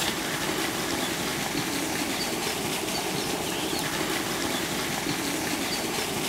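A small open wood fire burning with a steady hiss and faint small crackles as a whole chicken is held in the flames to singe it.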